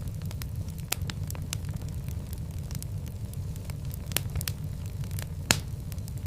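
Fire in a fireplace crackling, with many scattered sharp pops over a steady low rumble of flames. One pop about five and a half seconds in is the loudest.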